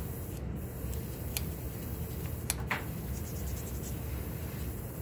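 Sandpaper rubbing over cured epoxy putty, the sculpted hair of a small figure head, in soft scratchy strokes with a few sharper scratches.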